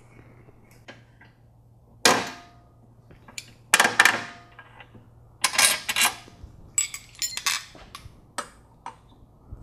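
Steel hand tools, a 13 mm wrench and ratchet, clinking and tapping against the car's metal suspension parts while the sway bar end-link screws are undone. The clinks come irregularly, several with a brief metallic ring.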